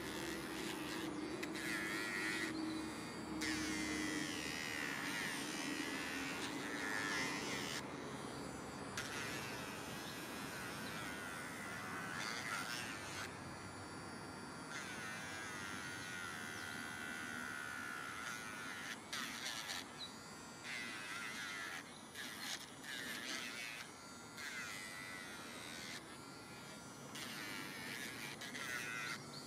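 Electric rotary nail grinder buzzing against a Weimaraner's toenails, its pitch wavering under load, with short pauses every few seconds as it is lifted off and set back on.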